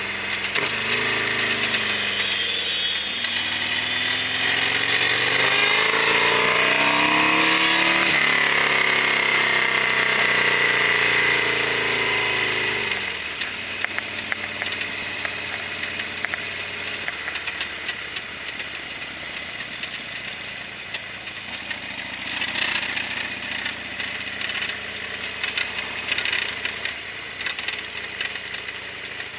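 Harley-Davidson XL1200R Sportster's V-twin engine running under way. It revs up in pitch over the first several seconds, then drops off about a third of the way in and carries on more quietly, with light rattling ticks near the end.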